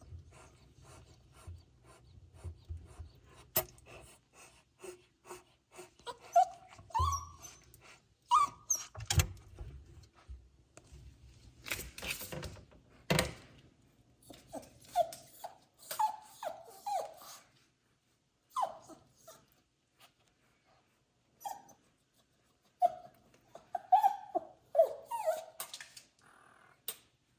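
Young animals whimpering and mewing: many short, high cries that bend up and down in pitch, with light clicks and a brief noisy burst about twelve seconds in.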